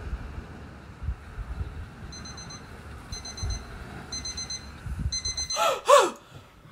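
Electronic alarm clock beeping in short rapid bursts about once a second, starting about two seconds in, over wind rumbling on the microphone. Near the end the wind cuts out and a woman gives a loud, startled gasp.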